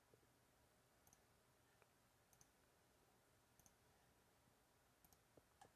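Near silence with about eight faint, short clicks scattered unevenly through it.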